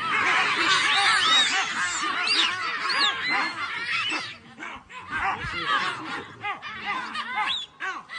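Many short, high-pitched animal calls overlapping in a dense chatter, thinning out to scattered calls after about four seconds.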